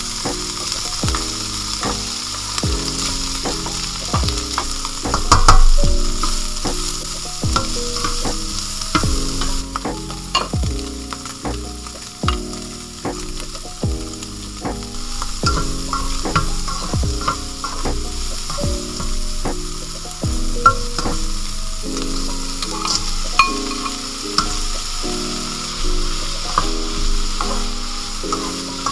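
Diced Spam, carrots and peas sizzling in a hot wok while being stir-fried, the slotted spatula scraping and knocking against the pan in frequent sharp clicks.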